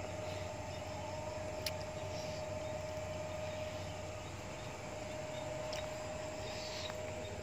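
Steady outdoor background: an even high hum with a few faint chirps and a single sharp click about two seconds in. The mating cats make no audible call.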